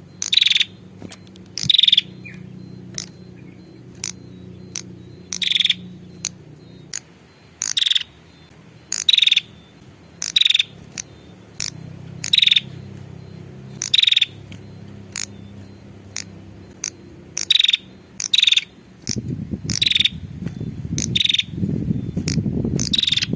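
Female prenjak (prinia) calling: short, sharp, high call notes repeated about every second to second and a half, the kind of call used as a lure to draw in males. A low steady background sound runs underneath and grows louder near the end.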